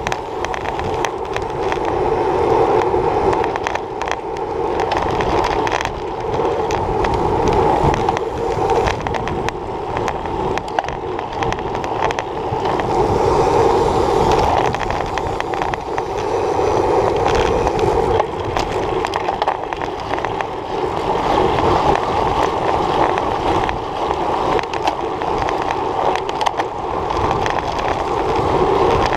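Road noise through a handlebar-mounted action camera on a racing bicycle rolling over rough asphalt: a steady hum with constant rattling clicks, swelling and easing every few seconds.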